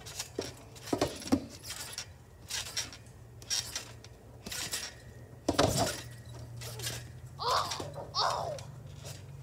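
Trampoline mat and steel springs thudding and jingling under a child's bounces, at irregular intervals of about half a second to a second, the heaviest landing about halfway through. Two short pitched sounds come near the end.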